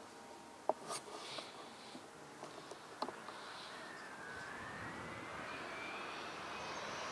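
JetCat P100-RX model jet turbine on a radio-controlled Swift glider, faint at first and growing steadily louder as a whine that rises in pitch over the second half. A few sharp clicks sound in the first three seconds.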